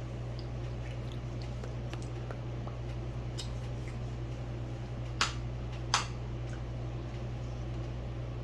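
Someone eating: chewing with scattered small clicks, and two sharper clicks about five and six seconds in, over a steady low hum.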